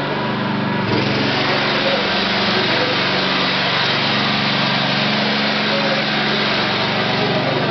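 Open-frame portable petrol generator running steadily under load, with an electric paddle mixer whirring in a bucket of mix; the din gets a little louder about a second in.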